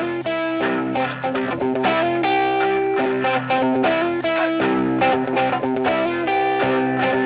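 Guitar music, a steady run of quickly changing plucked notes.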